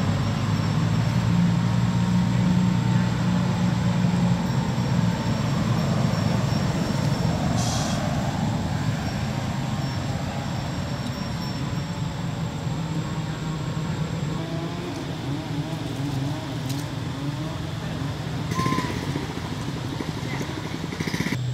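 A motor vehicle engine running with a low, steady hum that eases off a little after about twelve seconds.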